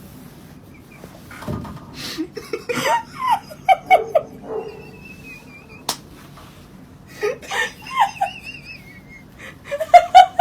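Laughter in several short bursts: around three to four seconds in, again around seven to eight seconds, and once more near the end. A single sharp click about six seconds in.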